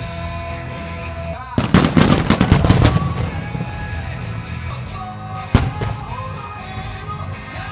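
Aerial fireworks exploding over background music: a rapid string of bangs starts about one and a half seconds in and lasts about a second and a half, then a single sharp bang comes about five and a half seconds in.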